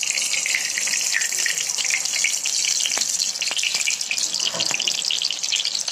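Ghee and oil sizzling in a hot pan: a steady, dense hiss with scattered crackles, starting abruptly.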